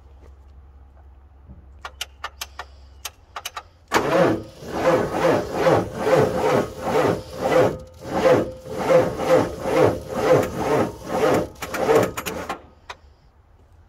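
Ford 7.3L IDI V8 diesel engine cranking on its starter, run off a portable jump starter pack, for about eight seconds: a steady starter whine under a slow, labouring rhythmic pulse, stopping abruptly without the engine catching. A few sharp clicks come just before the cranking begins.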